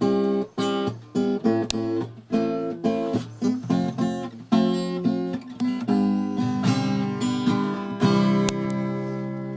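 Acoustic guitar strummed in a steady rhythm as the instrumental close of a song, about two or three strokes a second. Near the end a final chord rings out and fades.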